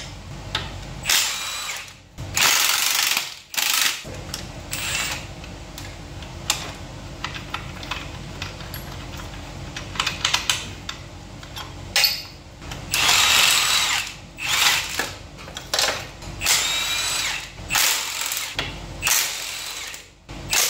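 A power drill-driver runs in several short bursts, spinning bolts out of the engine and gearbox assembly. In the longer bursts its motor whine climbs in pitch.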